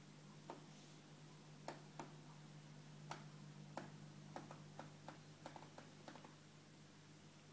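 Near silence: a faint steady low hum, with scattered soft clicks from about half a second in until shortly after six seconds.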